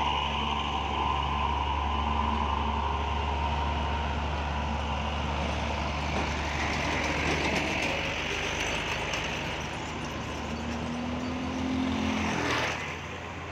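Heavy truck engines running as the trucks crawl past close by in queued traffic. Near the end a motorbike engine rises in pitch as it rides past, then the noise drops off suddenly.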